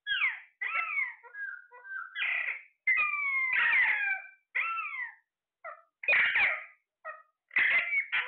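Parrot calling: a run of short whistles and squawks, many sliding down in pitch, with a longer call about three seconds in and quicker repeated calls near the end.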